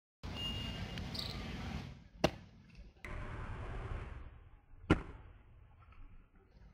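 Two sharp smacks of a flip-flop sandal striking a blindfolded player, about two and a half seconds apart, the second the louder, over a faint steady background hiss.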